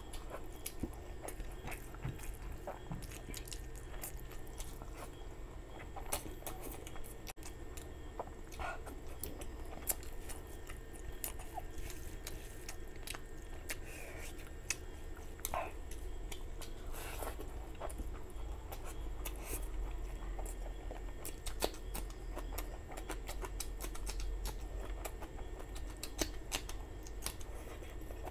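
Close-miked chewing of mouthfuls of rice and curry eaten by hand, with irregular soft clicks from the mouth throughout, over a steady low hum.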